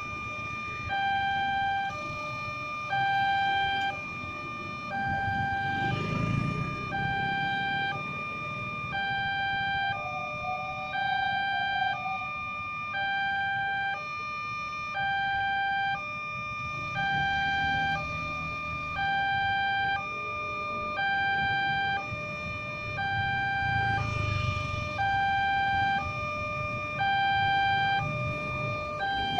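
Indonesian-made railway level-crossing alarm sounding its warning as the barriers close: a two-tone signal, a higher and a lower note swapping about once a second, over a steady high tone. Road traffic passes underneath it twice.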